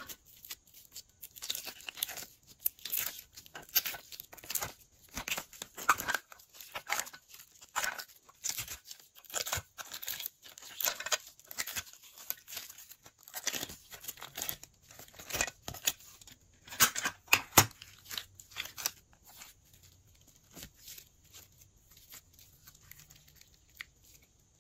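Glossy slime being kneaded and stretched by hand: dense, irregular sticky crackles and pops, thinning to fainter clicks in the last few seconds.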